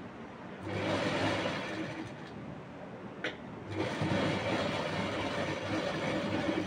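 Domestic sewing machine running as it stitches a folded bias-strip binding onto a kurta neckline, in two spells of about three seconds with a brief stop between.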